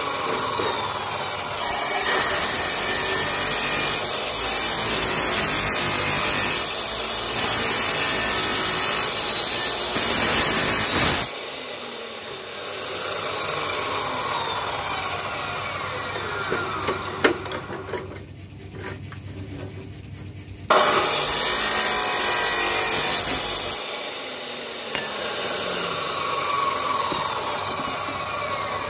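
Maktec abrasive cut-off saw grinding through a steel pipe in two loud stretches, one from about two seconds in to about eleven seconds and a shorter one around twenty-one to twenty-four seconds. After each stretch the motor runs on with a falling whine as the disc winds down.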